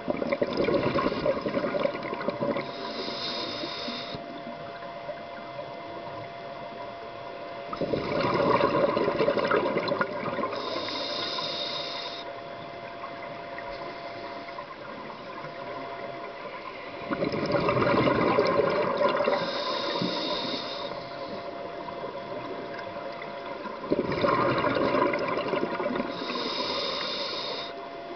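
A scuba diver breathing through a regulator underwater: about every eight seconds a burst of exhaled bubbles gurgles for a couple of seconds, followed by the hiss of the regulator on the inhale, four breaths in all. A faint steady hum runs underneath.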